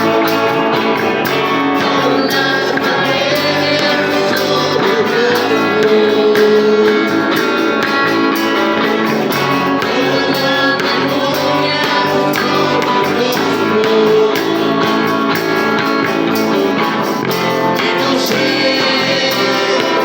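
A live band playing a rock song: singing over guitars with a steady percussion beat.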